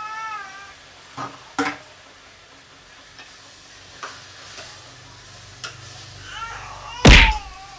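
Pork sizzling in hot oil in a stainless steel pot as it is stirred, with a metal spatula knocking against the pot several times and one loud clang near the end.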